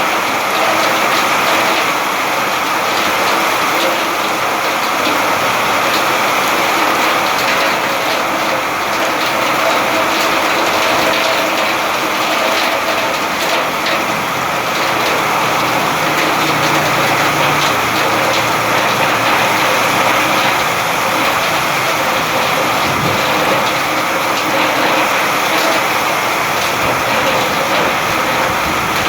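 Rain falling steadily, an even hiss of water that holds level throughout.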